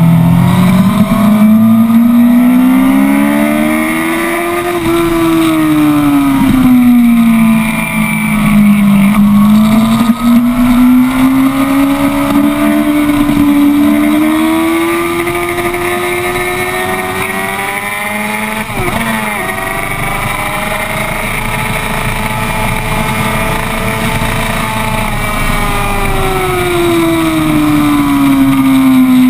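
Sport motorcycle engine heard from on board on a circuit lap, its note climbing as the rider accelerates and falling back as he eases off for corners, several times over, with a brief dip in the note about two-thirds through. Wind rush runs under the engine throughout.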